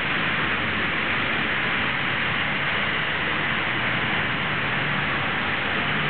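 Steady hiss of rain and traffic on a wet city street.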